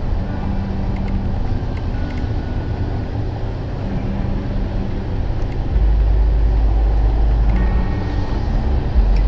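4x4 driving on a gravel road: engine and tyre rumble with wind on the hood-mounted camera's microphone, growing heavier in the low end about six seconds in.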